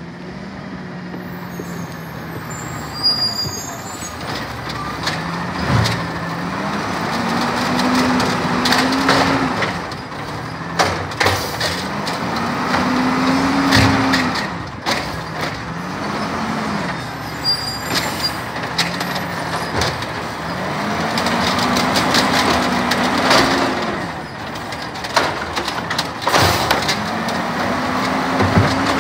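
Peterbilt 320 garbage truck with an Amrep automated side-loader arm at work: the diesel engine revs up and down again and again as the hydraulic arm cycles, with sharp knocks and clatter from the arm and the plastic carts.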